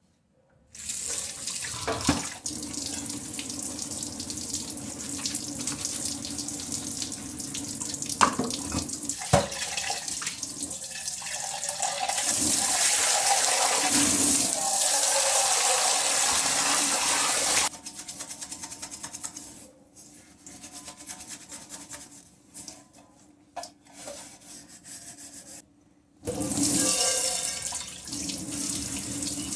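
Tap water running into a sink while dishes are washed by hand, with a few sharp knocks and clinks. The stream grows heavier in the middle, breaks up into short splashes with gaps, then runs strongly again near the end.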